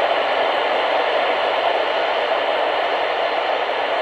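Steady hiss of radio static from a receiver, an even rush of noise with no tone or voice in it.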